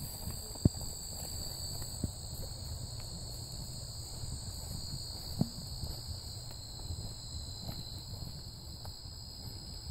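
Insects trilling steadily in two high pitches, with a low rumble underneath and a few scattered footfalls.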